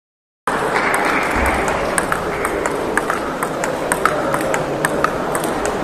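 Table tennis balls clicking off rubber bats and tables in quick, irregular succession, several rallies at once, over a steady din of the gym hall. The sound cuts in suddenly about half a second in, after a moment of silence.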